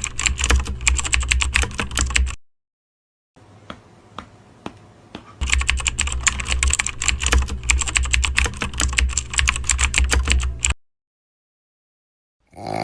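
Rapid, frantic typing on a computer keyboard in two long runs, with a short gap and a stretch of softer, sparser key clicks between them.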